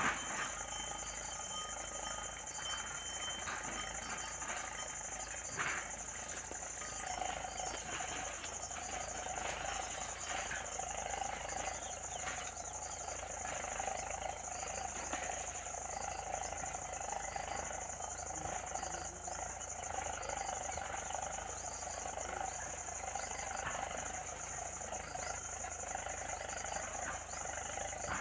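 Evening pond chorus: a steady high drone of insects with frogs calling continuously, their chorus swelling about seven seconds in, and a soft chirp repeating about once a second. A couple of sharp clicks stand out, one at the very start and one about five and a half seconds in.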